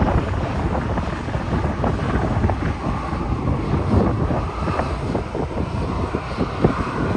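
Jet engines of a Boeing 737-800 on its landing rollout, a faint whine under heavy wind buffeting on the microphone, which is the loudest sound.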